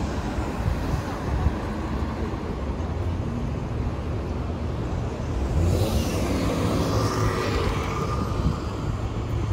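City street traffic: a steady low rumble, with one vehicle passing by, its noise swelling and fading about six to eight seconds in.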